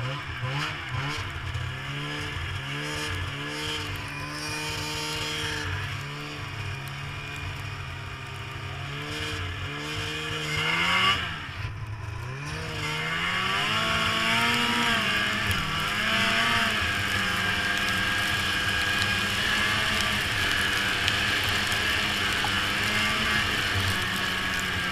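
Snowmobile engine running under way, its pitch rising and falling with the throttle. About eleven seconds in it revs up sharply, then settles into a louder, higher, steady run.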